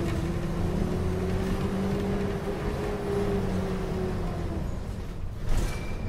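Mercedes-Benz O500M city bus engine running under way, heard from inside the bus. Its steady hum eases off about four and a half seconds in, and a sharp knock comes about a second later.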